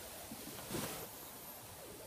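Faint rustle of bedding a little under a second in, as a cat walks across a bed.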